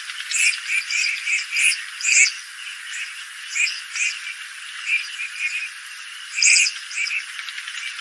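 A flock of red-crested pochards giving short, rasping calls, many in quick irregular succession and some overlapping. The loudest come about two seconds in and again past six seconds.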